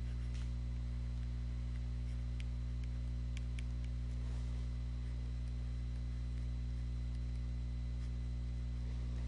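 Steady low electrical hum, with a few faint ticks about two and a half to four seconds in.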